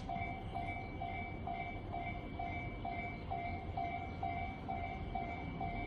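Japanese railway level-crossing alarm ringing, its two-pitch electronic 'kan-kan' tone repeating steadily about twice a second.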